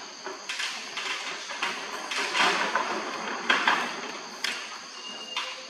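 Steady high-pitched insect drone, with irregular rustling and scratching noises over it that are loudest around the middle.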